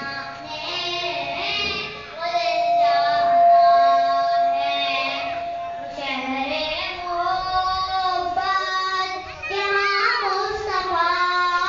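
A boy singing a naat, a devotional Urdu poem in praise of the Prophet, in a single sung voice, holding one long note from about two seconds in until about six.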